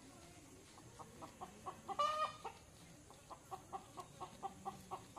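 Chicken clucking: a steady run of short clucks, about five a second, with one louder call about two seconds in.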